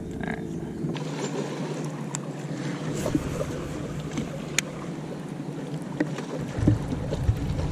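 Outdoor noise on a fishing boat: wind on the microphone and water around the hull, with a few sharp clicks.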